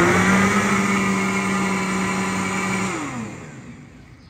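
Countertop blender running at full speed through watermelon purée with a steady motor whine, then switched off about three seconds in, its pitch falling as the blade spins down.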